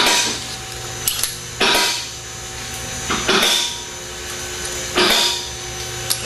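Power tool run in short bursts about every second and a half, each lasting about half a second, with a steady hum underneath.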